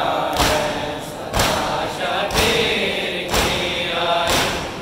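Mourners chanting a noha together while beating their chests in matam, a heavy unison thump about once a second, five strokes, between the sung lines.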